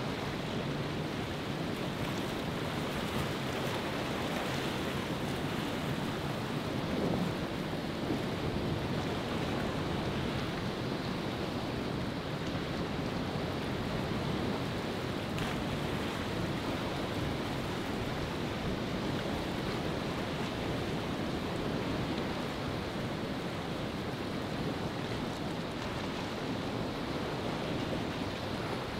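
Steady rush of rough, breaking surf and wind.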